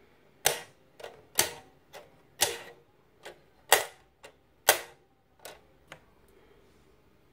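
The buttons of a 1970s Waco blackjack slot-machine lighter pressed one by one: five sharp loud clicks with a short ring, each followed by a fainter click, at a little under one click-pair a second.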